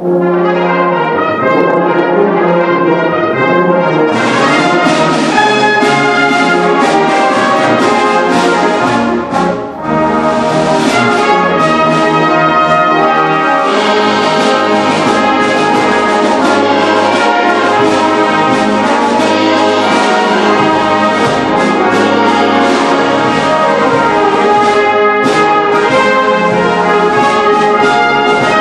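A Salvation Army brass band (cornets, horns, euphoniums and tubas) playing a full, sustained passage together. The sound dips briefly about ten seconds in, and the low bass parts come in stronger from about halfway through.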